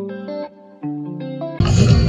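Music: a few plucked guitar notes, each ringing out and fading. About one and a half seconds in, much louder and fuller music cuts in abruptly.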